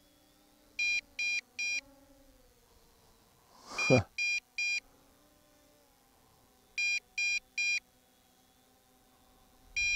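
Electronic beeping from the MJX Bugs 5W's handheld radio transmitter: sets of three short, high beeps repeating about every three seconds, over a faint steady hum. A short, louder rush of noise comes about four seconds in.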